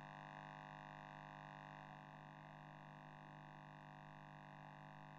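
Near silence: a pause in the speech, with only a faint steady electrical hum from the recording chain.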